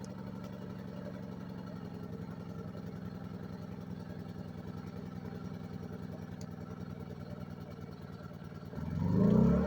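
Small portable gas generator engine running steadily under light load. Near the end, a louder surge rises and then falls off over about a second.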